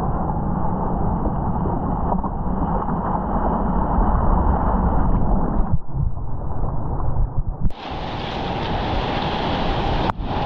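Wind buffeting the microphone over the rush of ocean surf. The sound changes abruptly about six, eight and ten seconds in.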